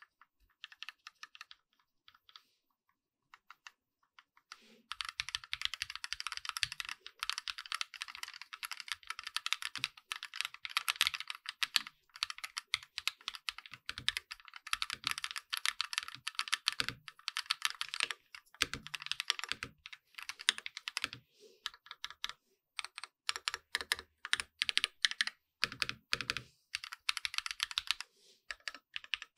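Typing on a lubed, modded Keychron Q1 mechanical keyboard with SA-profile keycaps: a few scattered keystrokes, then fast continuous typing from about five seconds in, with brief pauses.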